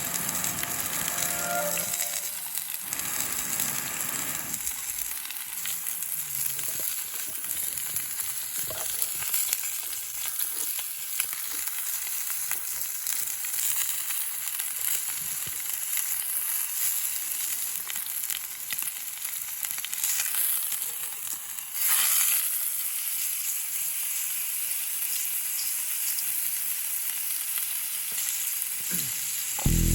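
Steak sizzling in an iron frying pan over a campfire: a steady frying hiss that jumps louder about two-thirds of the way through.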